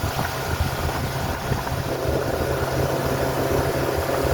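Boat motor running steadily while under way: an even low hum under a broad hiss.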